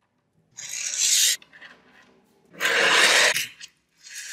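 A gloved hand rubbing and sliding across a smooth tabletop in three swipes: about a second in, a louder one about three seconds in, and a shorter one near the end.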